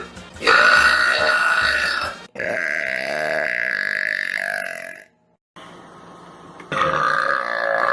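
A young woman burping: a string of long, drawn-out burps, one after another, with a brief silent break about five seconds in.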